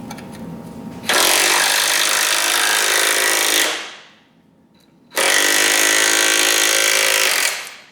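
Impact wrench hammering on a large suspension A-frame nut or bolt in two runs of about two and a half seconds each, with a short pause between. The fastener is tight and being broken loose.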